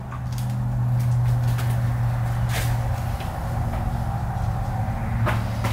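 A steady low mechanical hum, with a few faint clicks and taps over it.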